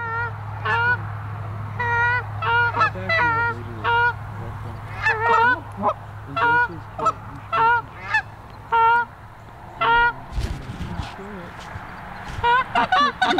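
Canada goose honks: many short, sharp calls in quick irregular succession, pausing about ten seconds in and starting again near the end. A steady low hum runs underneath until about ten seconds in.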